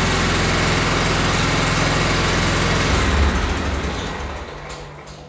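Tractor engine running steadily, then shut off about three seconds in and dying away over the next two seconds.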